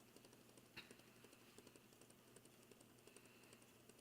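Faint, irregular light ticking of fidget spinners still spinning down on a hard surface, with one slightly sharper tick about a second in.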